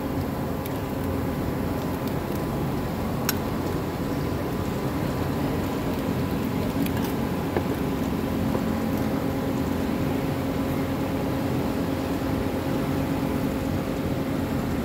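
Steady mechanical hum with a low constant tone, broken by a few light clicks.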